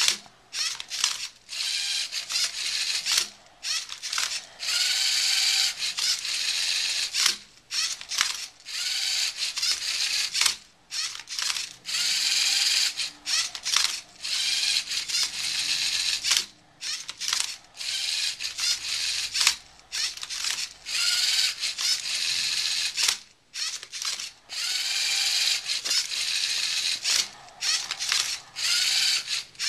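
Lego Mindstorms robot's motors and gears whirring as it turns and flips a Rubik's cube. The whirring comes in repeated bursts of a second or two, with short pauses and clicks between moves.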